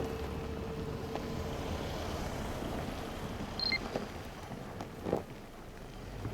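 A motor vehicle going by, its steady engine hum and rumble dying away over the first couple of seconds; a brief high chirp about three and a half seconds in and a knock about five seconds in.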